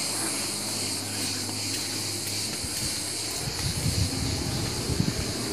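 Steady high-pitched insect chorus. A low rumbling on the microphone comes in about three seconds in.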